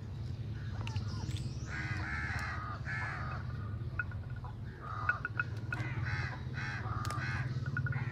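A crow cawing repeatedly, a run of short harsh calls, over a steady low hum.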